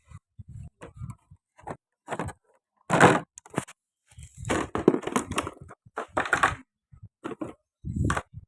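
Handling noises of an unboxing: packaging rustled and torn and parts knocked and clicked in the hands, in irregular bursts. The loudest stretches are about three seconds in and from about four and a half to six and a half seconds.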